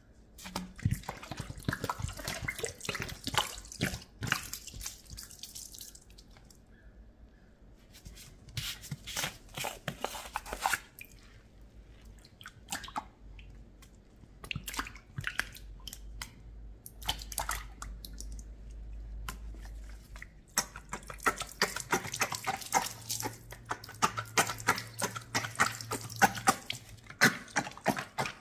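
Water splashing and dripping in bursts with short pauses between, the sound of water poured or run into a sink or basin.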